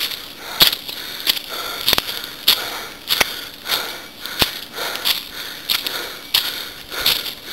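Footsteps crunching through dry leaf litter on a forest path at a steady walking pace, about three steps every two seconds, with a few sharp crackles among them.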